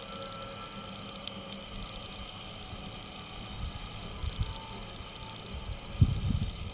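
Winson-built steam locomotive hissing steam as it moves slowly, the last of its whistle dying away at the start. Irregular low rumbling thuds come in near the end.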